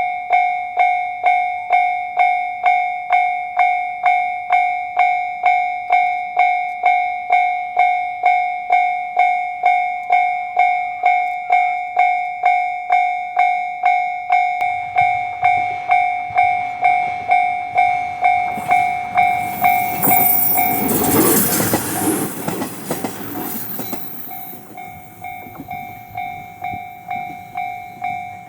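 Japanese level-crossing warning bell ringing steadily, about two strikes a second, as a train passes. The noise of the diesel railcar builds from about halfway, is loudest about three-quarters through, then fades while the bell rings on.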